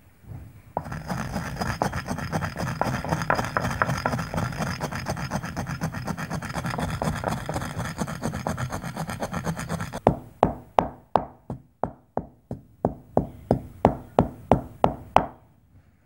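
Wooden pestle grinding mustard seeds in a clay mortar: a steady gritty rubbing for about nine seconds, then pounding the seeds with about three sharp strikes a second for roughly five seconds.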